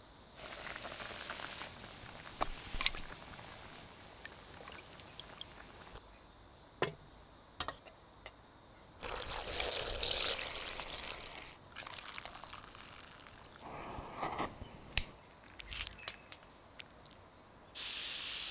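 Water poured through a wire-mesh strainer into a metal tray: a steady, splashing pour lasting about three seconds midway, the loudest sound here. Around it come scattered small clicks and splashes of fruit in water, and near the end a short rushing pour of sugar and jelly powder into a basin of water.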